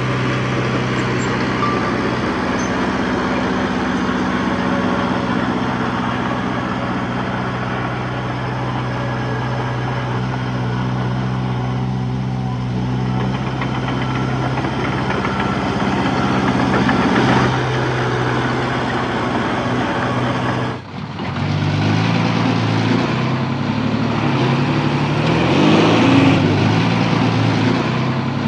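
Heavy diesel engine of earthmoving machinery running steadily at one pitch. About 21 seconds in, the sound breaks off suddenly and an engine comes in whose pitch steps up and down as it is worked.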